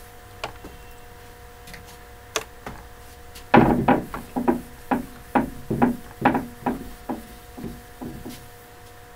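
A whiteboard being wiped clean by hand, a run of about a dozen quick rubbing strokes with light knocks against the board, starting about three and a half seconds in.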